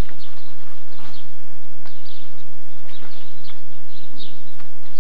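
Small birds chirping again and again, mixed with short crinkles and knocks from gift boxes and tissue paper being handled as presents are opened.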